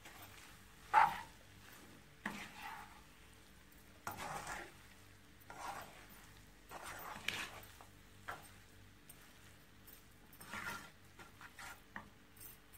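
A black spatula stirring and scraping pasta around a non-stick frying pan, in irregular strokes about once a second, with one sharper knock against the pan about a second in.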